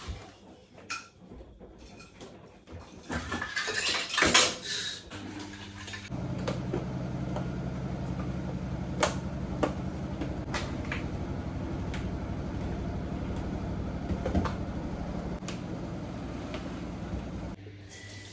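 Kitchen clatter of dishes and plastic containers being handled, with a few sharp clicks. About six seconds in, a steady low mechanical hum starts and cuts off suddenly near the end.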